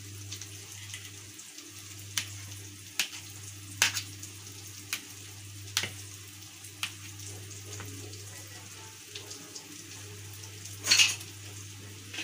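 A kitchen knife cutting soft boiled potatoes into chunks on a steel plate, the blade clicking against the metal about once a second, over a steady low hum. A louder clatter near the end.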